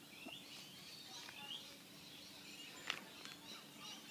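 Small birds chirping over and over in short rising calls, over a faint steady hum, with a sharp click about three seconds in.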